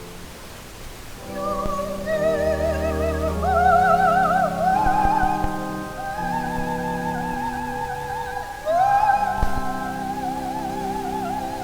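Music: a high solo melody with wide vibrato, in the style of a classical soprano, over sustained keyboard chords. The melody moves in long held phrases and swoops up to a new phrase after about eight and a half seconds.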